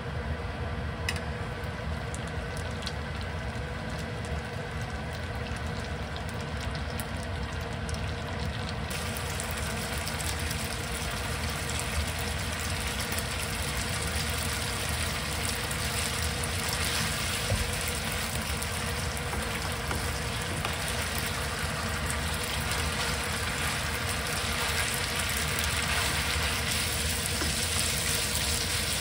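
Spaghetti and sliced garlic frying in olive oil in a nonstick pan, a steady sizzle with a constant hum underneath. About nine seconds in the sizzle turns brighter, and it grows slowly louder toward the end.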